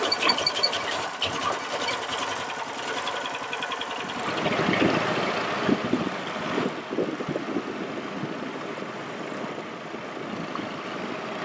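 Small wooden motorboat's engine running steadily as the boat travels.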